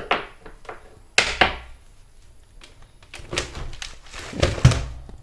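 Plastic knocks and clicks with some rustling as the dust bag and nozzle of a Mailtank SH-15 handheld blower are handled and pulled apart, the blower switched off. The loudest is a dull thud about four and a half seconds in.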